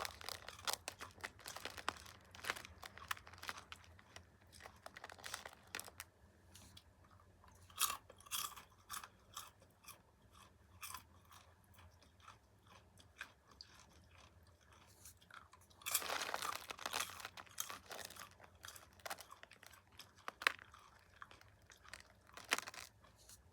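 Close-miked chewing and crunching of popcorn: bursts of crisp crunches, quieter for a few seconds in the middle, then a loud run of crunching about two-thirds of the way through.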